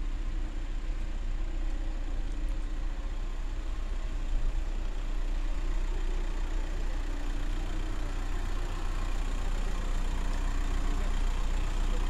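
Motor vehicle engine idling: a steady low rumble with no change in pitch.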